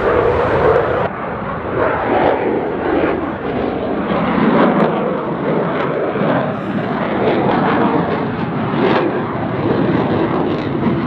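Eurofighter Typhoon fighter jet climbing steeply straight up after takeoff, its jet engine noise very loud and continuous, swelling and easing a little as it goes.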